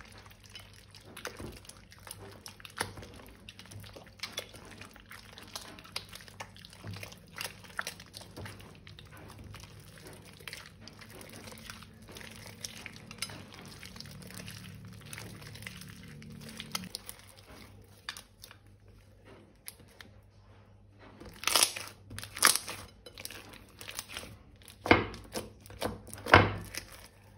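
Slime-making handling: plastic piping bags and balloons crinkling, with many small clicks and taps. Near the end come about four sharp, much louder knocks.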